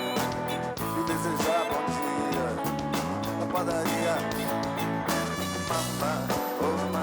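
Band music with guitar playing a song, with a wavering melody line over steady held notes.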